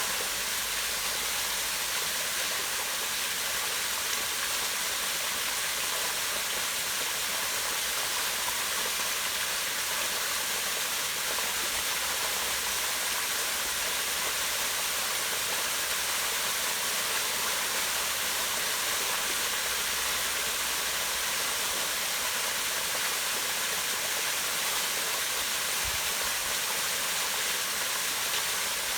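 Small waterfall pouring down rocks into a pond: a steady rushing hiss of falling water that stays even throughout.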